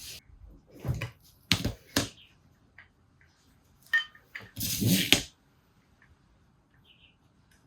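Tools and small metal carburettor parts clicking and knocking against each other and the bench: a few sharp knocks in the first two seconds, one more about four seconds in, then a short clattering scrape about five seconds in.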